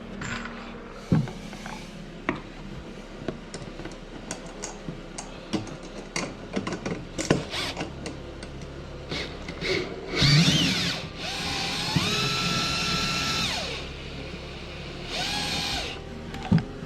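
Power drill driving a screw in short bursts, its motor whining up to speed and holding for a second or two each time, after several seconds of scattered clicks and knocks as the screw and tool are handled.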